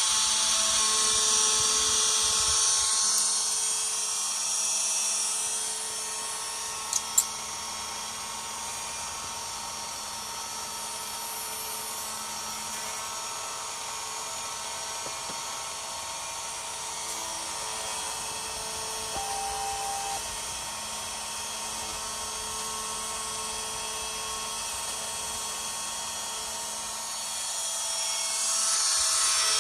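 Small high-speed spindle motor of a mini CNC machine running steadily while drilling a printed circuit board, a high whine with a hiss that is louder at the start and again near the end. Two sharp clicks come about seven seconds in.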